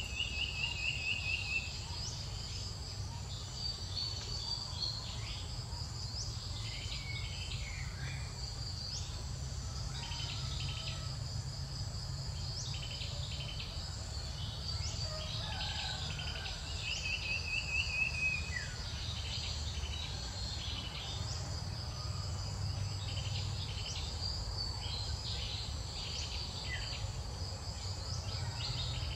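Steady outdoor insect chorus, a continuous high buzz with flickering pulses. A bird twice gives a short rapid trill, about a second in and again a little past the middle, over a low steady rumble.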